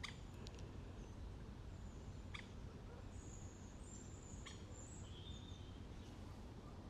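Faint birdsong in woodland: thin, high chirps and short calls from small birds, with a few light clicks over a steady low rumble.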